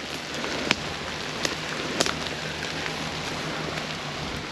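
Steady rain pattering on the woods, with a few sharp clicks, the loudest about two seconds in.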